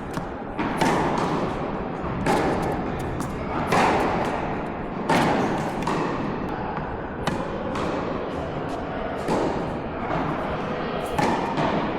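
Tennis rally: racket strings striking the ball back and forth, a sharp hit every one and a half to two seconds, with lighter clicks of footwork and bounces between.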